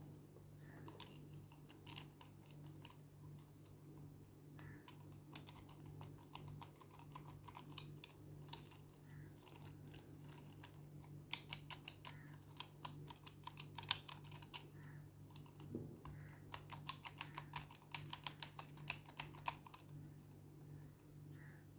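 Light clicks and taps from handling a hard plastic toy and its packaging, scattered at first, then in quick runs in the second half. A steady low hum runs underneath.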